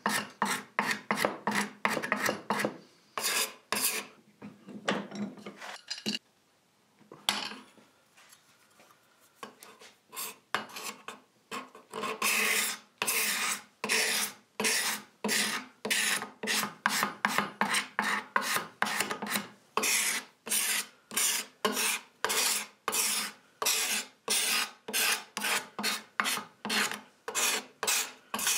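Hand scraper drawn along a solid teak table leg in short repeated strokes, scraping off the old finish. The strokes pause about six seconds in, come back sparsely, then run on steadily at about two a second.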